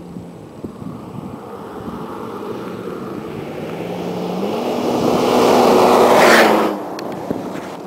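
Toyota Tacoma pickup driving fast along a cinder-gravel road toward the listener and past. Engine and tyre-on-gravel noise build steadily, with the engine note stepping up about four and a half seconds in. The sound peaks as the truck passes about six seconds in, then drops away quickly.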